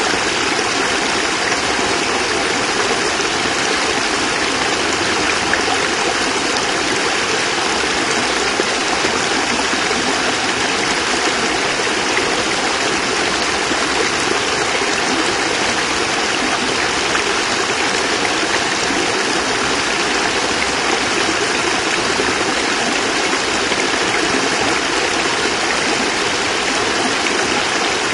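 Water pouring over a small cascade, a steady rushing splash with no breaks.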